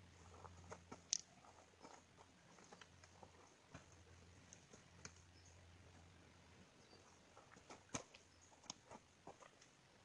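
Faint, scattered crackling and snapping of twigs and dry forest debris being handled and piled onto shelter netting, with two sharper snaps about a second in and near the end, over a faint low hum.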